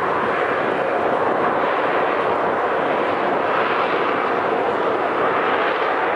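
AV-8B Harrier's Rolls-Royce Pegasus turbofan running at high thrust, a loud, steady jet roar as the jump jet holds low and slow over the water.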